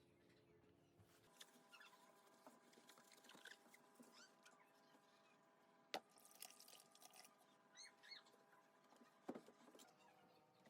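Near silence with faint scattered clicks and a few small high squeaks, the sharpest click about six seconds in.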